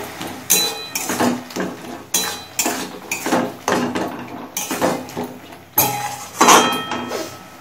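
Flat metal spatula scraping and knocking against a metal kadai while chopped tomato and pineapple are stirred: irregular strokes about twice a second, some with a brief metallic ring.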